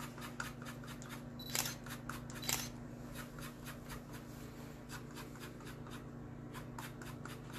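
A lemon being rubbed against a handheld citrus zester: a run of irregular small scraping clicks, with two louder ones about a second and a half and two and a half seconds in.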